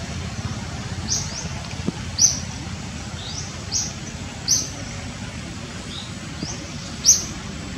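Birds chirping: short, high, upward-sweeping chirps about once a second, over a steady low rumble.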